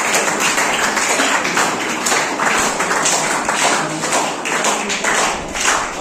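An audience clapping, a steady run of many hand claps.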